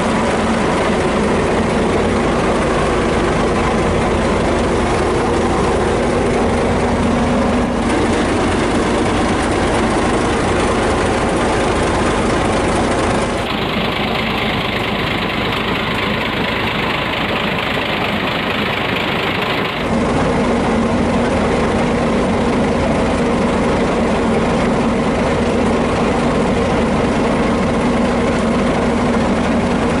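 Komatsu bulldozer's diesel engine idling steadily. For about six seconds in the middle the low hum thins and a higher hiss comes to the front.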